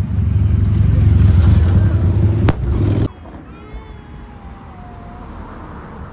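Fireworks display: a heavy low rumble rolling on after shell bursts, with one sharp crack about two and a half seconds in. Around halfway the sound drops suddenly to a quieter background with faint wavering whistles while a shell climbs.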